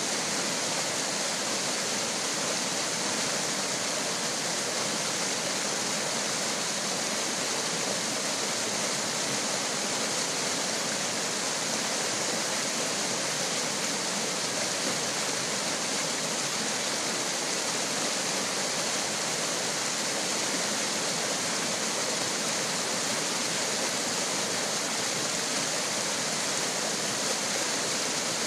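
Mountain stream rushing and splashing over boulders in a small whitewater cascade, a steady, unbroken hiss of moving water.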